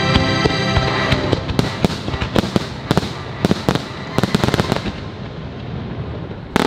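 Fireworks show finale: shells bursting in quick succession, many sharp bangs a second from about one second in, thinning out after about five seconds, with one more loud bang at the very end. The show's music is heard at the start and fades under the bursts.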